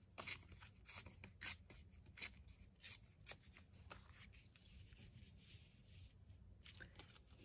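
Faint rustling of a paper scrap being handled by hand and laid against a paper page, in a string of short rustles that thin out after the first few seconds.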